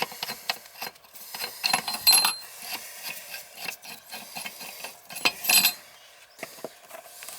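Hand tools clicking and scraping against the metal parts of an old outdoor shower fixture as it is taken apart, with two louder scrapes about two seconds in and near five and a half seconds.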